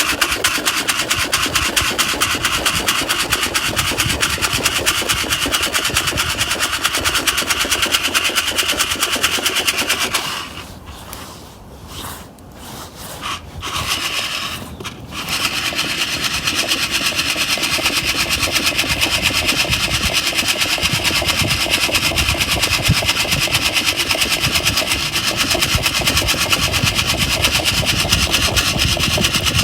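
Coffee beans rattling fast and steadily as they are shaken in a metal Sierra cup while roasting over a campfire. About ten seconds in, the rattle breaks off for roughly five seconds, with only a few single rattles, then resumes.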